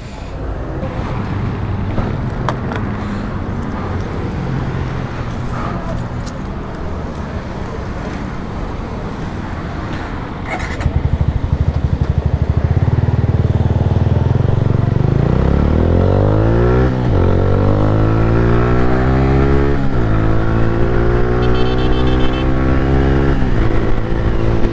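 Street traffic hum, then a motorcycle engine close by: about ten seconds in it runs with fast low pulses, then it pulls away and its pitch climbs, dropping at each of three upshifts.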